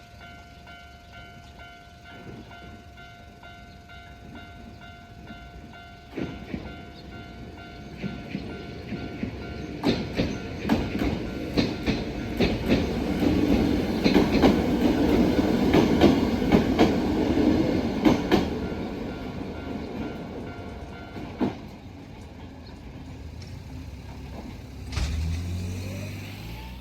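Japanese level crossing's electronic warning bell ringing in a steady repeating two-tone pattern while a Mizuma Railway electric train passes. The train's wheels click over rail joints, louder toward the middle. The bell stops a few seconds after the train has gone, and a low rising sound comes in near the end.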